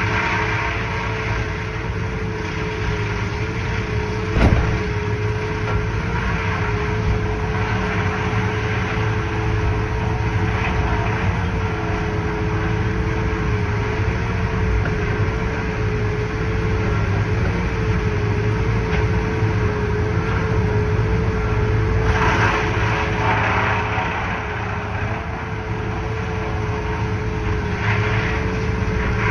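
A wood chipper and a feller buncher running together as brush is shoved into the chipper by the buncher's head, a steady heavy-machinery drone with a continuous slightly wavering whine. A sharp knock comes about four seconds in, and louder bursts of rushing, crunching noise come about three-quarters through and again near the end as material goes through the chipper.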